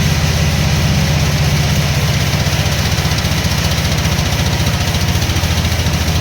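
A large engine running steadily at an even speed, with a fast regular pulsing in its low drone.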